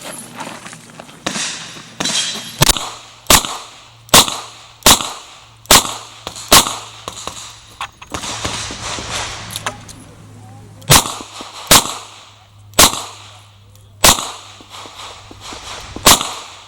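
Revolver shots at a shooting match: six shots about a second apart, a pause of about four seconds, then another run of six. The strings of six with a pause between fit a six-shot cylinder being emptied and reloaded.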